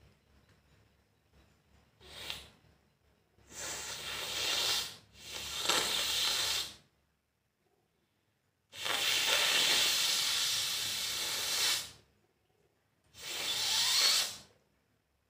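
A person blowing their nose forcefully again and again: a short puff, then four long blasts of air through the nose, the longest lasting about three seconds, with short pauses between.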